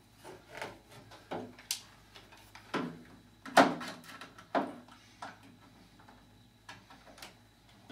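Putty knife prying hole plugs out of a patio door sash over the roller adjustment screws: irregular clicks, taps and short scrapes of the blade against the frame, loudest a little past the middle.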